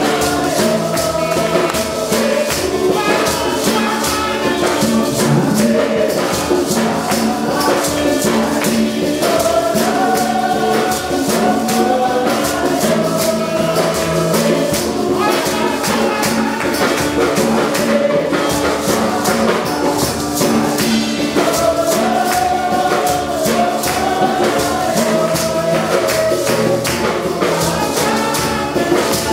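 A group of women's voices singing a gospel worship song together, with guitar accompaniment and a steady, fast, shaken percussion beat.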